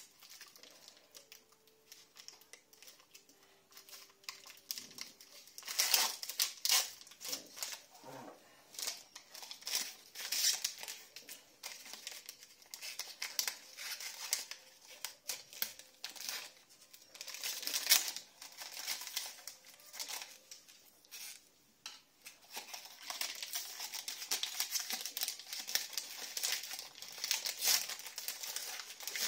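Plastic packaging crinkling and rustling, with scattered clicks and taps as syringes and vials are handled. The noise comes in irregular bursts and is busiest near the end.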